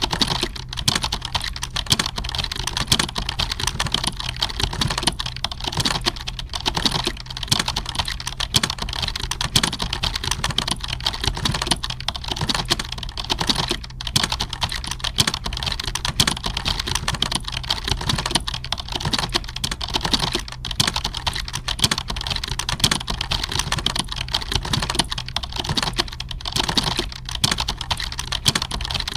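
Computer keyboard typing, a fast, unbroken stream of keystroke clicks, with a faint steady low hum beneath.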